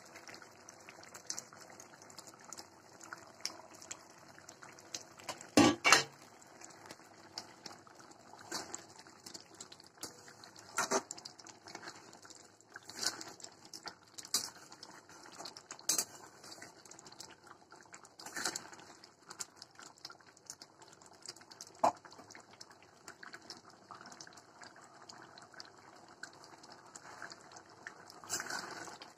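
Thick pea curry simmering in a metal kadai, with a spatula knocking and scraping against the pan now and then as it is stirred; the loudest clanks come about six seconds in.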